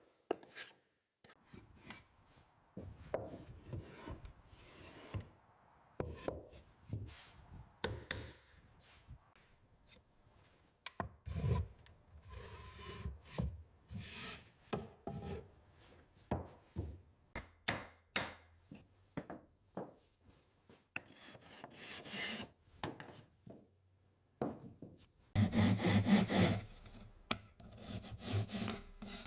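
Hand tools working wood: a string of short scraping and rubbing strokes at an uneven pace, with a louder, longer stroke near the end.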